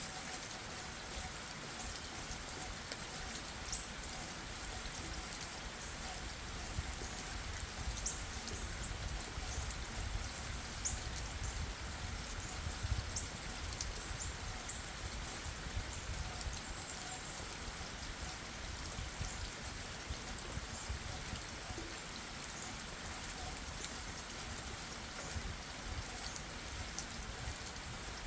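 Steady rain falling on leaves and forest ground, with scattered drips and taps from individual drops.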